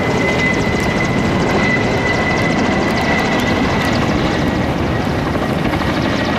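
Coaxial-rotor firefighting helicopter flying low overhead: loud, steady rotor and turbine noise with a thin, steady high whine.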